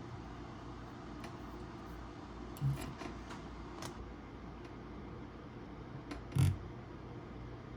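Small parts and packaging being handled on a table: a few light clicks and two short knocks, about 2.7 and 6.4 seconds in, over a steady low hum.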